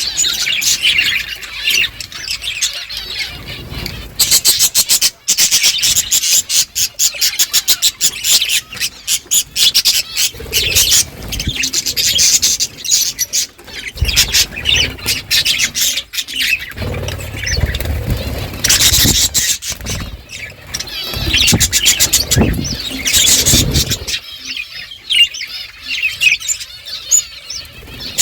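Budgerigars chirping and chattering continuously in short, high calls, with runs of rapid clicking from beaks husking seed.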